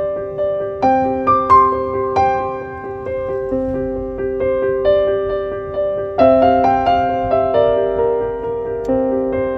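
Background music: a gentle piano piece, notes and chords struck and left to ring and fade in an unhurried pattern, with fuller chords about a second and a half in and again about six seconds in.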